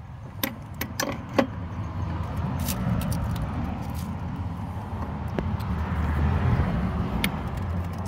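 A few light metal clinks of hand tools in the first second and a half, then a low rumble that swells and fades.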